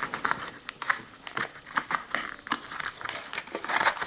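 Packaging being handled: irregular crinkling and rustling with many small clicks and taps.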